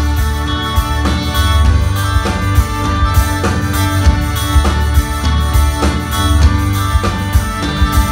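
Live band playing an instrumental passage with no singing: a steady drum-kit beat under acoustic and electric guitars, keyboard and a bowed violin.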